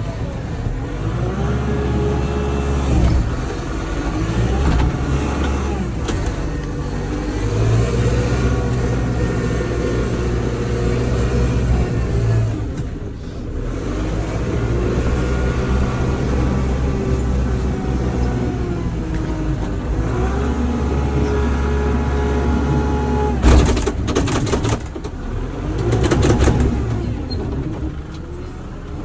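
Kubota L-series compact tractor's diesel engine running under way, its revs rising and falling repeatedly. Near the end come a few sharp knocks.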